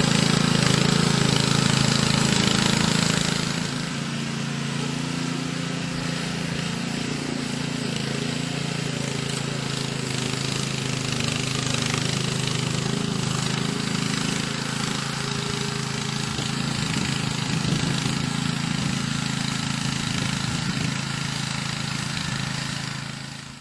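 Honda GXV160 single-cylinder four-stroke engine of a Max Truck power barrow running steadily. It runs louder for the first three seconds or so, then settles a little quieter, and cuts off sharply at the end.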